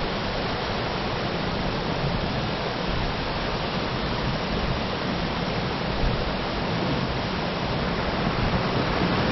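Amedaki waterfall: a steady, unbroken rush of falling water.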